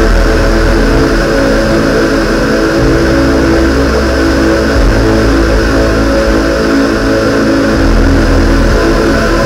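Live electronic music played on synthesizers: a held, droning chord over a deep bass note that shifts about every few seconds.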